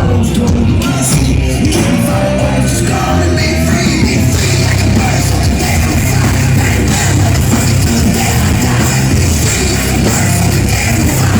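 Live rap-rock concert music played loud through a PA: heavy bass and drums, with shouted vocals and crowd voices mixed in.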